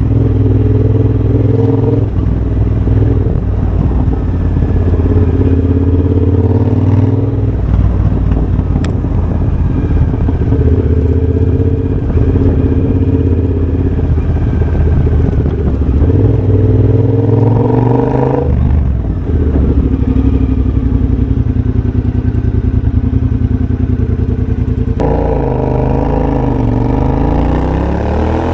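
2023 Triumph Bobber's 1200 cc parallel-twin engine running under way through a de-catted X-pipe and Motone shorty exhaust, its pitch climbing and dropping with throttle and gear changes. A rise and sudden drop comes a little after halfway, and near the end the pitch dips and climbs again.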